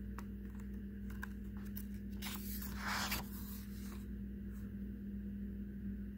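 A picture book's page being turned: a brief rustle of paper about two and a half seconds in, with a few faint touches of fingers on paper, over a steady low hum.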